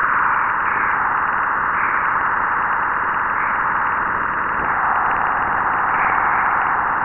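Radio and plasma-wave data from the Juno spacecraft, converted into sound, recorded as it crossed Jupiter's magnetopause amid trapped continuum radiation. It is a steady, eerie band of hiss with faint wavering tones along its upper edge.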